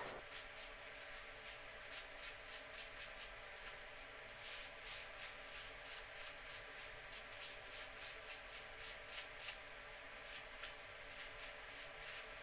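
Teak oil being rubbed onto a small wooden jig: soft, scratchy rubbing strokes, about three or four a second, with a couple of short pauses.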